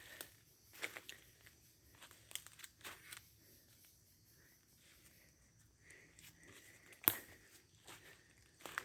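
Footsteps and the crackle and rustle of leaves and undergrowth on a forest floor as someone walks, with a sharper crack about seven seconds in.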